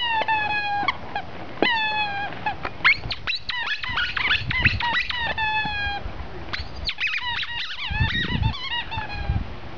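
Rubber squeaky ball squeezed again and again in a dog's jaws as it plays: quick runs of short squeaks, each dropping slightly in pitch, with brief gaps between the runs.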